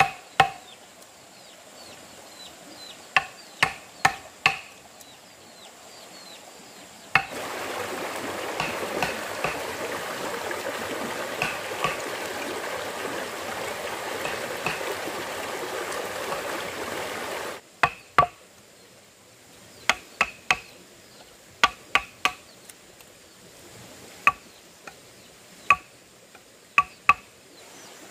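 Sharp knocking or chopping strikes, each with a brief ringing note, coming irregularly in groups of two to four. About seven seconds in, a steady rush like running water starts abruptly and stops just as suddenly some ten seconds later, with a few strikes still heard under it.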